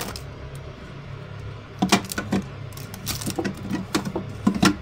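Plastic food packs and a refrigerator's plastic crisper drawer being handled and rearranged: scattered clicks and rattles about two seconds in and again near the end, over a steady low hum.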